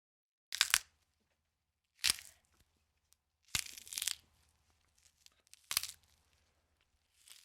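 Bone-cracking sound effect: short, sharp crunching cracks about every second and a half, the one in the middle coming as a quick double crack.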